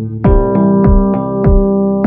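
Background electronic pop music: sustained electric-piano and synthesizer chords over a steady kick-drum beat, about three beats a second.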